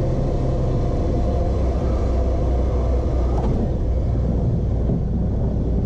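Cessna 172's piston engine droning steadily, heard inside the cockpit with a low rumble and airflow noise.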